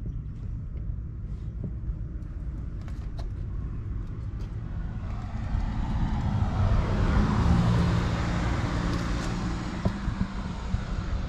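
A car drives past, its engine and tyre noise swelling from about halfway through and fading toward the end, over a steady low rumble.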